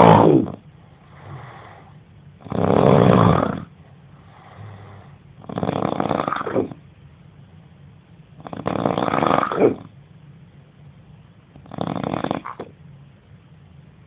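A man snoring loudly in his sleep: a heavy snore about every three seconds, five in all, with a softer breath sound between each.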